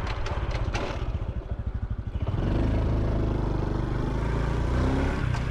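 Honda Super Cub C125's single-cylinder four-stroke engine puttering at low revs with its exhaust beats plainly separate, a few clicks in the first second. A little past two seconds in it picks up and runs steadier and louder.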